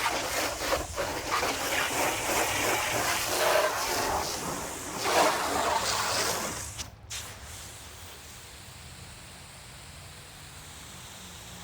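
Garden hose spraying water onto a car's body, a dense, uneven hissing splash that cuts off suddenly about seven seconds in, leaving a quiet steady background.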